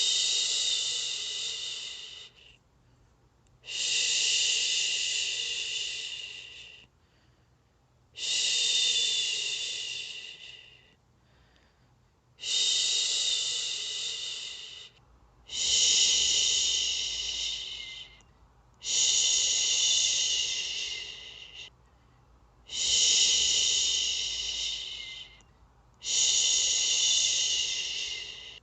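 A person shushing ("shhh") over and over, eight long hushes in a row. Each starts sharply, trails off over two to three seconds, and is followed by a short pause: a soothing shush for lulling a baby to sleep.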